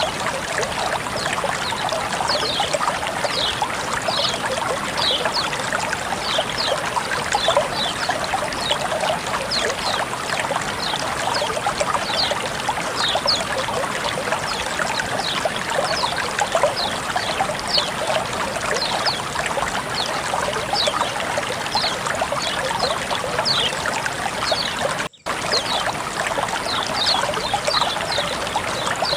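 Flowing water trickling and burbling steadily, with many small bright splashy notes, cutting out for an instant about 25 seconds in.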